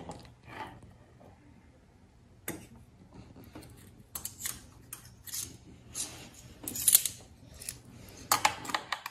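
Metal squeeze-handle scoop scraping filling out of a plastic food processor bowl, its spring handle clicking. A string of short, sharp scrapes and clicks that comes thick and fast from about four seconds in.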